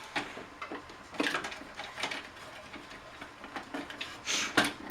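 Plastic top cover of a Keurig coffee maker being pried and worked loose: scattered clicks, scrapes and rattles of plastic parts. Near the end come two sharp snaps, the top's plastic latch clamps breaking off.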